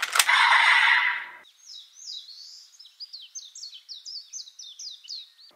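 Electronic sound effects: a click, then about a second of glitchy noise, then a quick run of short high chirps, each falling in pitch, about three a second.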